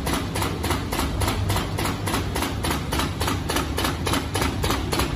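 Film cutting and perforating machine running, its cutter clicking through the film in an even rhythm of about four or five strokes a second over a steady low hum.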